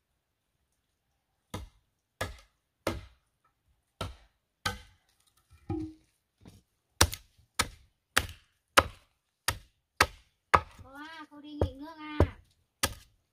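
Machete chopping into a wooden log, one sharp strike about every half to two-thirds of a second, the blows growing louder from about halfway in.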